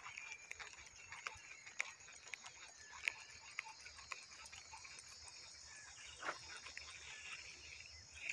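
Faint, steady high-pitched buzzing of insects, with scattered small clicks.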